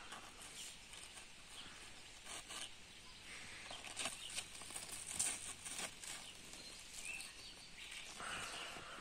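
Faint footsteps and rustling of plants in a vegetable garden, with scattered light crackles, busiest around the middle.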